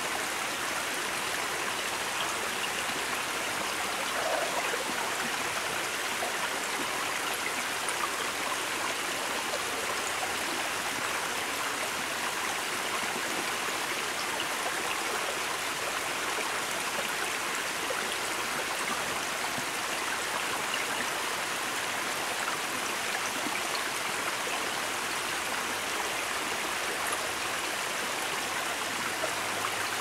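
Small mountain creek cascading in thin streams over mossy rocks: a steady rush and splash of running water.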